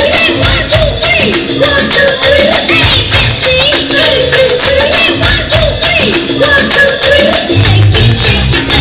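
Loud pop music with a steady beat, a repeating wavering melody line and bass, with a shaker-like percussion rhythm running through it.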